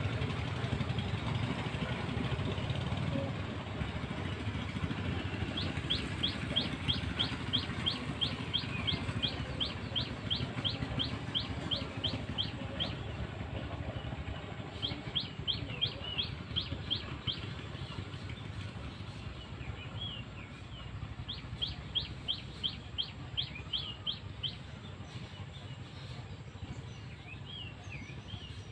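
A bird calling in three long runs of quick, rising high notes, about four a second, with a few single chirps between them. Under it is a low, steady rumble that is strongest at first and slowly fades.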